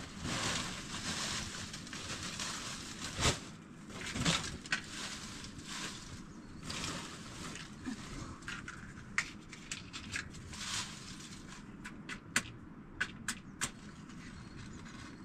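Dry twigs and brushwood rustling and crackling as they are handled and laid for a fire, with a couple of knocks early on and several sharp snaps in the second half.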